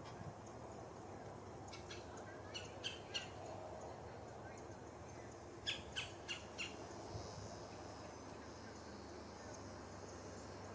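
Short, sharp bird calls: a few notes about two seconds in, then a quicker run of four or five about six seconds in, over faint outdoor background noise.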